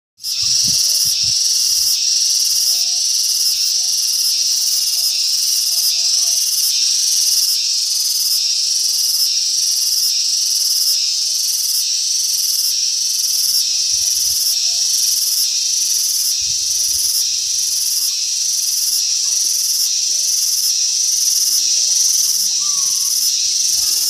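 Cicada calling loudly: a continuous high-pitched buzz with a regular pulsing in it, about three pulses every two seconds.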